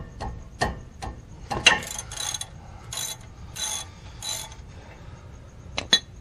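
Ratchet wrench working a 17 mm caliper bolt loose on a Toyota 4Runner front brake: a few sharp clicks, then a run of short raspy ratcheting bursts a little over half a second apart, and two sharp clicks near the end.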